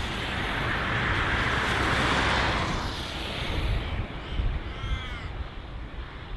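Rushing jet noise of a Boeing 737's landing roll on a wet runway, mixed with low wind rumble, that fades after about three seconds. About five seconds in a bird calls once.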